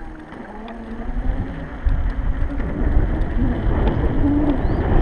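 Wind buffeting the microphone and road noise while riding a Stealth Bomber electric bike, rising sharply in loudness from about a second in as the bike gathers speed, with a faint wavering hum underneath.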